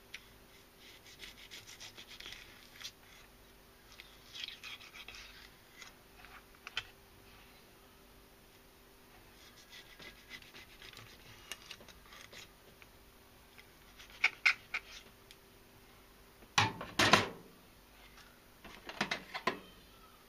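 Kitchen knife cutting the head off a young yellowtail (inada) on a wooden cutting board: scattered scraping and crunching as the blade works through scales, gill plate and bone. A few heavier knocks against the board come near the end.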